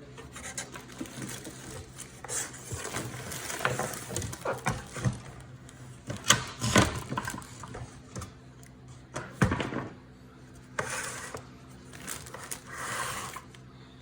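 Hand tools working loose the bolts that hold down an oxygen concentrator's compressor: irregular clicking and scraping, with a few sharper knocks of metal on metal, over a faint steady low hum.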